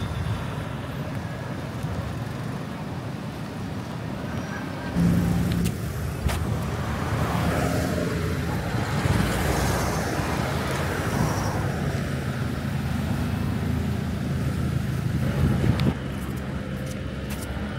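Road traffic: motor vehicle engines running with a steady low hum, one louder vehicle starting up about five seconds in and another swelling past and fading in the middle.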